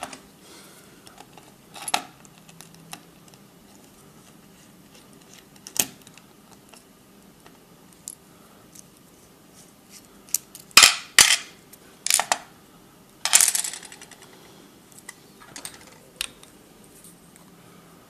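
Small metal parts of a Schlage padlock core clicking and clattering in the hands and against a pin tray while the core is taken apart. Scattered light clicks, with a cluster of louder clatters around eleven to fourteen seconds in.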